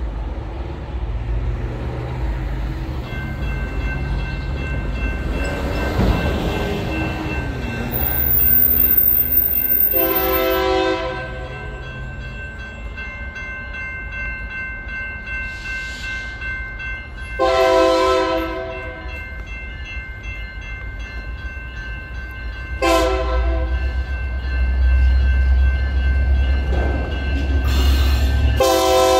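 Union Pacific freight locomotive horn sounding the grade-crossing signal: long, long, short, long. A steady electronic crossing warning bell rings underneath, and the locomotive's low rumble grows louder toward the end as it nears the crossing.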